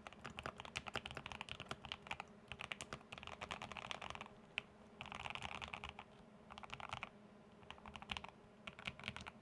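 Typing on a KBD75 V3.1 mechanical keyboard with a polycarbonate plate, modded Banana Split linear switches and MT3 keycaps: a stream of key strokes in fast runs, with short pauses where only a few keys are pressed.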